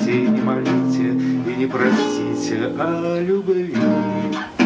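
Acoustic guitar being strummed and plucked, accompanying a song.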